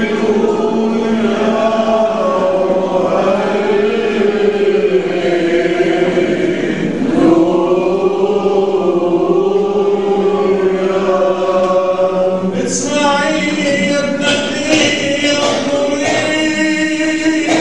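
Several voices chant a slow liturgical hymn together in long held notes that glide gently up and down. About thirteen seconds in, the singing turns brighter and fuller.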